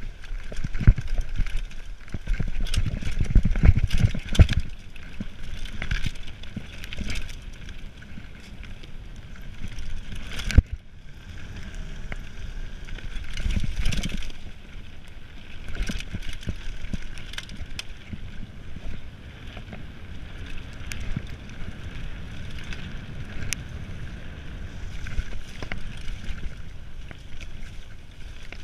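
Mountain bike ridden fast down a dirt forest trail: tyres rumbling over the ground, with frequent knocks and clattering as the bike hits bumps and roots, and air rushing over the camera microphone. A brief lull about ten seconds in ends with a sharp knock.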